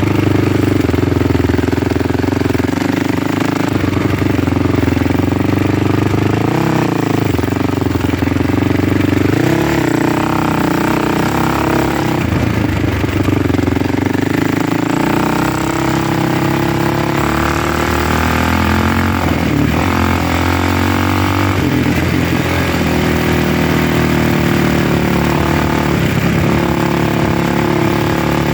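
A motor vehicle's engine running steadily while under way, its note shifting several times.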